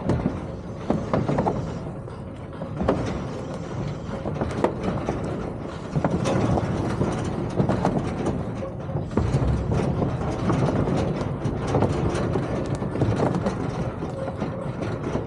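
A vehicle running with a steady low rumble and frequent rattles and clanks.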